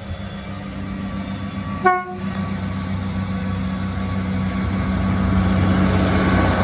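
Approaching train sounding one short horn toot about two seconds in, over a steady engine hum that grows steadily louder as the train nears.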